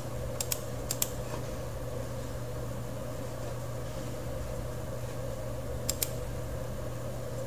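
Steady low hum and hiss of a computer room, with sharp mouse clicks in pairs: two pairs in the first second and another pair about six seconds in.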